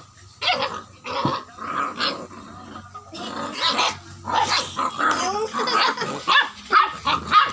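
Terrier-cross dog barking and growling in quick, repeated bursts.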